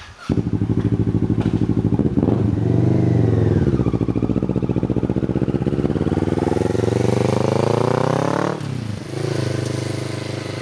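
Kawasaki Ninja 650R parallel-twin with an Arrow aftermarket exhaust, coming in suddenly and loud, with a short rev, then a long steady climb in pitch as the bike accelerates for about four seconds. The note drops sharply near the end and then runs lower and fades.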